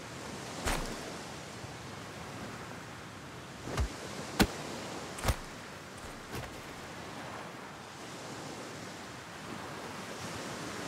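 Steady wash of ocean surf, with about five sharp thumps in the first six seconds, the loudest near the middle.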